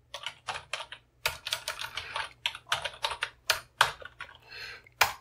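Typing on a computer keyboard: an uneven run of quick key clicks, with a short pause about a second in.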